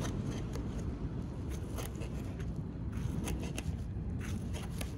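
Knife cutting a tomato on a small cutting board: scattered light taps and scrapes over a steady low rumble.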